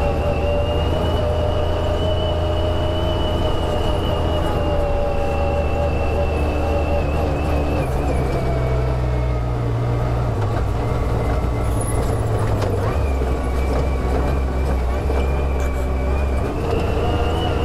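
Side-by-side UTV running steadily on the move, with a thin high whine over the engine that drifts up and down in pitch. The engine note shifts a couple of times.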